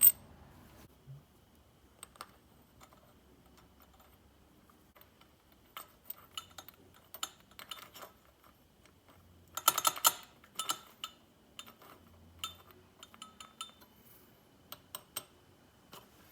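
Scattered light clicks and metallic clinks of small air-compressor pump parts and hand tools being handled during reassembly, with a dense flurry of clinks about ten seconds in.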